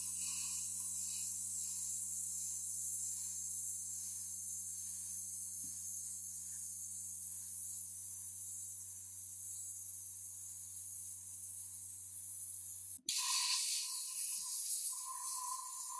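Steady hiss of a spray of air over a low, steady hum. It breaks off about 13 seconds in and returns as a hiss with a wavering tone.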